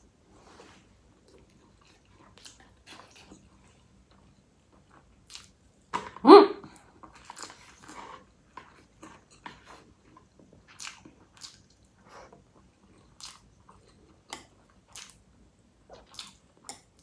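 Close-miked sounds of a person eating noodles and side dishes: chewing and biting, with scattered small mouth clicks and one louder mouth noise about six seconds in.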